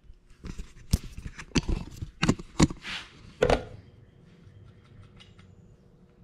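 Sharp metal clanks and clicks as a valve spring compressor is handled and set on an aluminium motorcycle cylinder head to take out the valve springs: a quick run of about eight knocks in the first three and a half seconds, then only faint light ticks.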